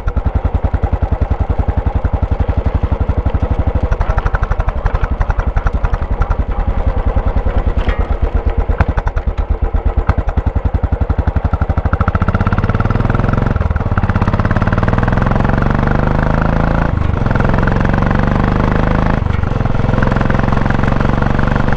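Royal Enfield Classic 500 single-cylinder engine ticking over with an even pulsing beat, then pulling away about twelve seconds in, the revs rising and dropping briefly three times as it shifts up through the gears.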